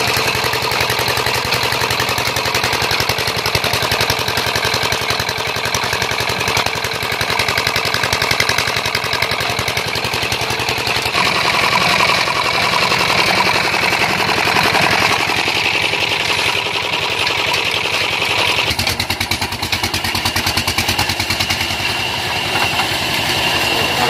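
Old stationary diesel engine running steadily with a fast, even beat, driving the sawmill through a flat belt and line shaft.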